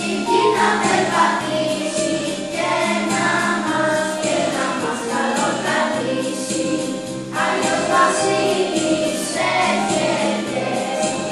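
Background music: a choir singing a Christmas carol over instrumental accompaniment with a repeating bass line.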